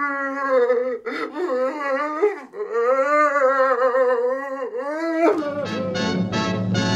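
A man wailing and sobbing loudly in long, wavering cries with short breaks between them. About five seconds in, music comes in.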